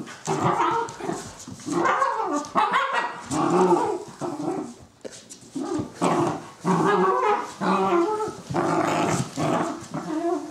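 Two cocker spaniel puppies play-fighting, growling and barking in short repeated bursts.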